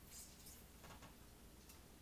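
Faint, irregular clicks and ticks, a few in all, from a cut lemon being squeezed and pushed through a small strainer for its juice; otherwise near silence.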